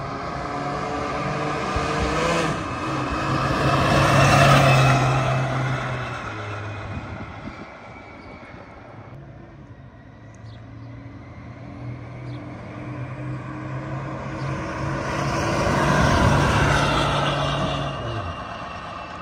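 Holden HQ Kingswood driving past twice, its engine note rising as the car approaches and fading as it goes away. The first pass is loudest about four seconds in and the second about sixteen seconds in.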